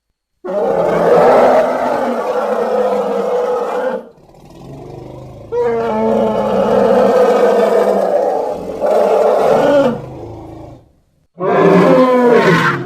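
Elephant calls: three long, loud, harsh calls. The first starts about half a second in and lasts some three and a half seconds, a longer one begins about five and a half seconds in, and a shorter one near the end falls in pitch.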